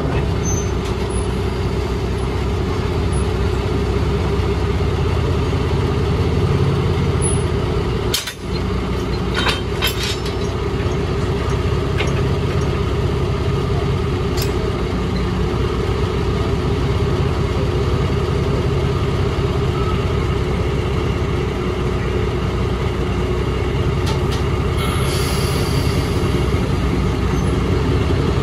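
Small diesel switcher locomotive's engine running steadily, heard close up from the coupled car behind. A few sharp clicks and knocks come about eight to fifteen seconds in, and a brief hiss comes about twenty-five seconds in.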